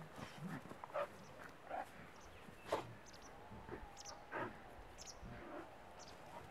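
Bernese mountain dog puppies play-fighting, giving short growls and grunts scattered through, the loudest a little under three seconds in.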